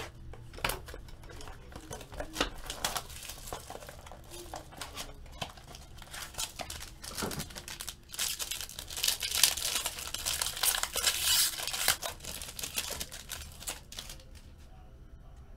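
A foil trading-card pack being crinkled and torn open by hand, a dense crackling that is loudest for a few seconds just past the middle.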